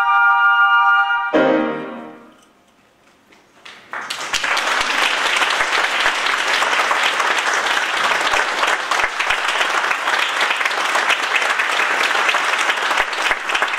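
A flute ensemble holds a final chord that breaks off about a second in, followed by a brief lower chord that dies away. After a couple of seconds of quiet, the audience breaks into steady applause.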